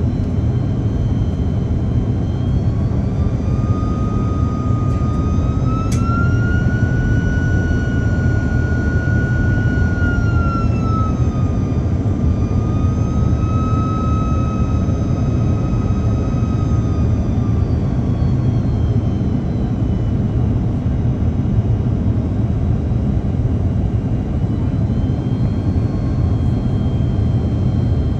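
Cabin noise of an Airbus A330-203 on descent, heard inside beside its wing-mounted GE CF6-80E1 turbofan: a steady low roar. Over it an engine whine rises about three seconds in, holds and wavers, fades out past the middle, and comes back near the end.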